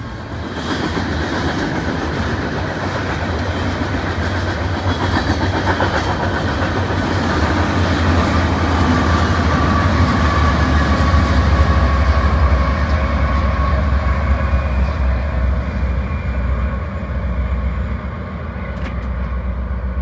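BNSF coal train rolling past: the low drone of a diesel locomotive and the steady clickety-clack of hopper-car wheels over the rail joints, loudest in the middle as the locomotive goes by.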